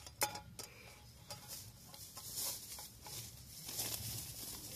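Camping gear being handled by hand: a few light clicks and knocks in the first second or so, then soft rustling and small ticks.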